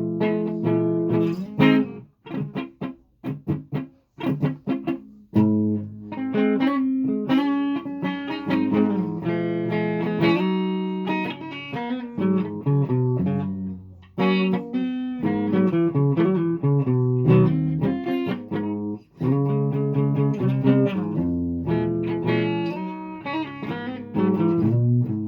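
Guitar being played: a run of plucked notes and chords, choppy with short stops in the first few seconds, then continuous.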